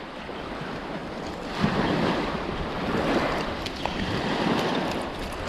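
Small waves breaking and washing up a sandy beach, growing louder about a second and a half in, with some wind on the microphone.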